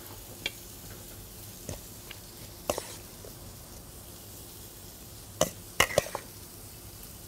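Metal tongs clinking against a stainless steel bowl and a ceramic platter as salad is lifted and laid down: a handful of short, sharp clinks, three close together near the end. Under them runs a faint steady sizzle of quail breast fillets cooking on a barbecue grill.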